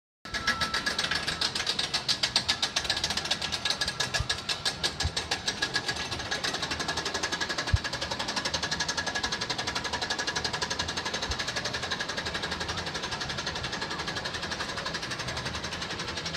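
Roller coaster car climbing a vertical chain lift: a fast, even clatter of the lift chain and anti-rollback ratchet, over a faint steady whine, with one sharper knock about halfway through.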